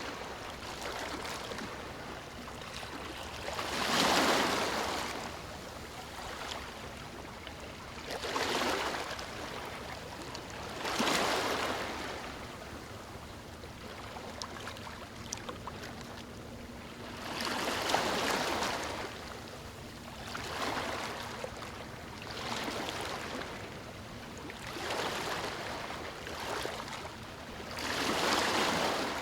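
Ocean surf on a beach: waves breaking and washing up the shore one after another, each a swell of rushing noise every few seconds over a steady wash, about eight in all.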